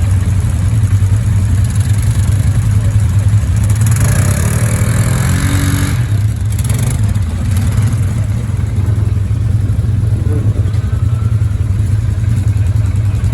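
ATV engine running under way with a steady low rumble, revving up with a rising pitch about four to six seconds in.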